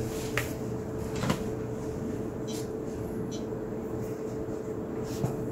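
Room tone with a steady hum, broken by a few light clicks and handling noises, two of them in the first second and a half.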